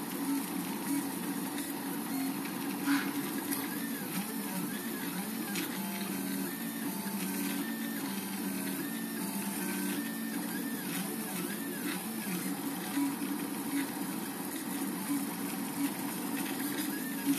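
Portabee RepRap 3D printer printing, its stepper motors whining in pitches that rise and fall in repeated arcs as the print head moves, over a steady lower hum, with a few faint ticks.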